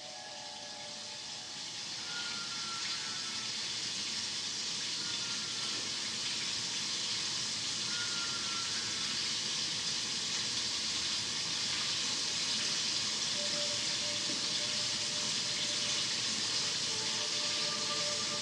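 Steady hissing noise that swells over the first several seconds and then holds evenly, with a few faint tones above it.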